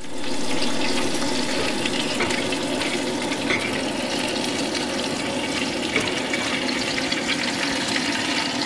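Bacon frying in a skillet on a camp stove: a steady sizzle full of fine crackling.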